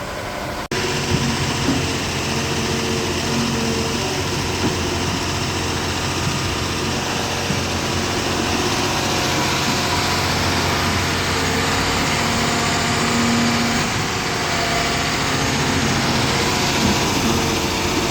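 Diesel engine of a John Deere 350G excavator running steadily, with slight shifts in pitch as the machine works.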